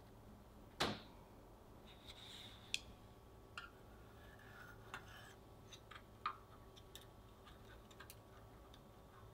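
Light clicks and taps of a metal offset spatula and a chopstick against a metal baking sheet as thin, crisp cookie wafers are lifted and rolled, with one sharper knock about a second in and a short scrape soon after.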